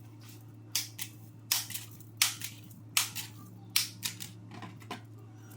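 Dry lasagna noodles being snapped into pieces by hand: a series of sharp, brittle cracks at uneven intervals, about ten in all.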